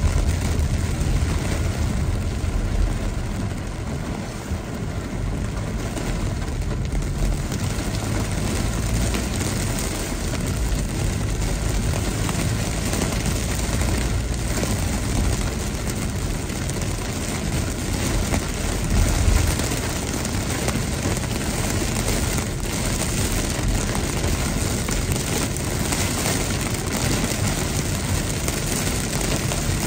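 Heavy rain drumming on a car's roof and windshield, heard from inside the moving car, over a steady low rumble of wind and road noise. It swells briefly about two-thirds of the way through.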